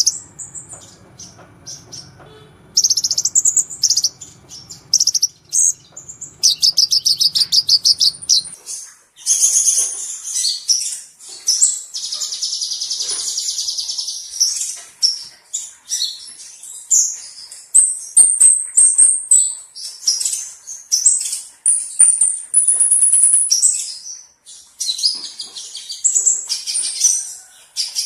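Kolibri ninja, a sunbird, singing. It gives a long run of high-pitched chattering trills and twittering phrases with short pauses, including a fast series of repeated notes and a steady buzzing trill around the middle.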